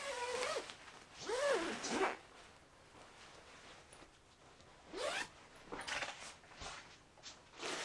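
Zip on a Snugpak Special Forces bivvy bag being run in several short pulls, each with a rising and falling pitch, the clearest near the start, about a second and a half in and about five seconds in, with rustling of the slippery nylon fabric between them.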